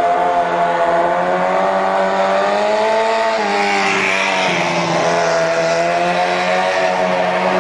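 Four-cylinder engine of a custom Honda Monkey 125 motorcycle running at high revs, its pitch rising and falling with the throttle. The bike passes close by about four seconds in, the pitch dipping and then climbing again.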